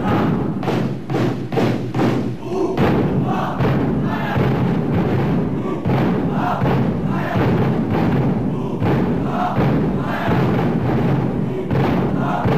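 Cheer-squad bass drums beating a fast, even rhythm, a run of sharp strikes in the first few seconds and then a denser mix, with crowd voices cheering over it.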